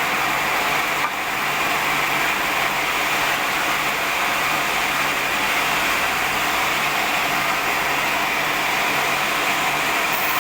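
Sawmill band saw running steadily, an even dense machine noise with no change in pitch, briefly dipping about a second in.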